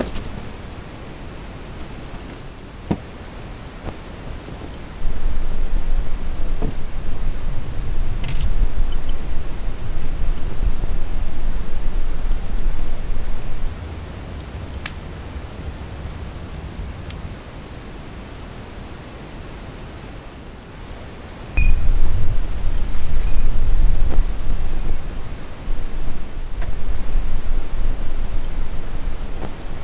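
Insects trilling in one steady, unbroken high pitch. Gusts of wind rumble on the microphone from about five seconds in to about fourteen, and again from about twenty-two seconds to near the end.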